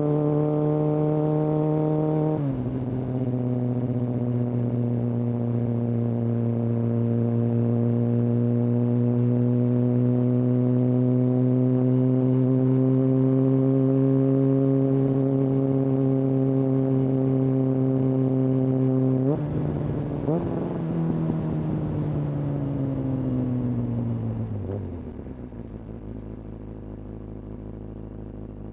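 Kawasaki ZX-6R's inline-four running through a Hindle aftermarket exhaust while riding: the revs drop with an upshift a couple of seconds in, then hold and slowly climb for a long stretch. Near the end the revs jump briefly in quick throttle blips on downshifts, then fall to a low, quieter idle as the bike slows.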